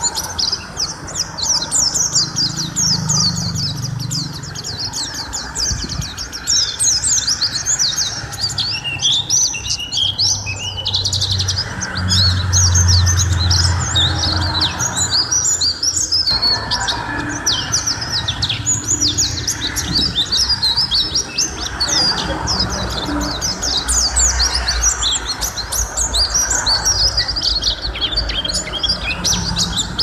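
A caged white-eye (pleci) singing a long, nonstop run of rapid high chirps and twittering trills. A low background rumble rises under the song about twelve seconds in.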